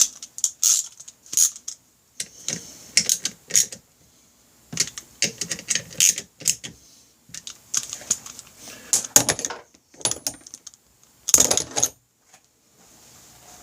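A hand tool tightening the bolts on a motorcycle engine's oil pump: irregular bursts of small, sharp metal clicks and clinks, with short pauses between them.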